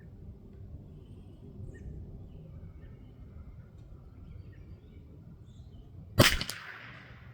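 A single .22 LR shot from a Ruger RPR bolt-action rifle about six seconds in: one sharp crack with a brief echo trailing off.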